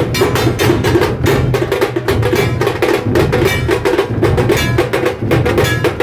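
Dhol and tasha drums beaten together in a rapid, continuous procession rhythm.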